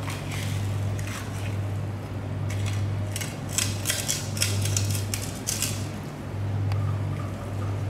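Long fish knife scraping and slicing along the rib bones of a bluefin tuna, a quick run of short rasping strokes through the middle, over a steady low hum.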